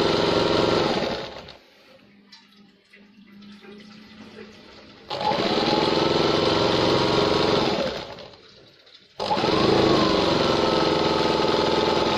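Sewing machine stitching in three runs of a few seconds each, stopping and starting between them. Its motor whine rises in pitch as each run starts and falls as it stops.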